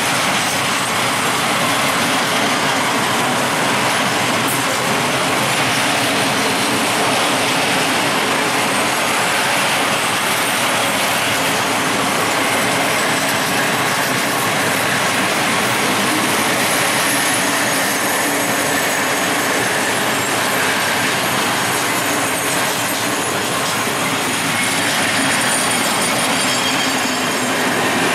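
A long freight train of open-top gondola wagons rolling past close by: a steady rumble and clatter of steel wheels on the rails. A faint high wheel squeal joins in the second half.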